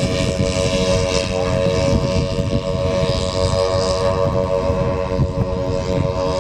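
Large radio-controlled PBY Catalina flying boat model in flight, its engines and propellers droning steadily. Gusting wind buffets the microphone with an uneven low rumble.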